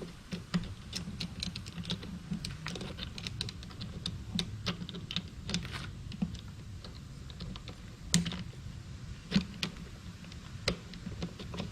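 Irregular small clicks and taps of plastic parts being handled as a hose fitting is screwed onto a Sun Joe SPX3000 electric pressure washer, a few knocks a second, with a louder knock about eight seconds in.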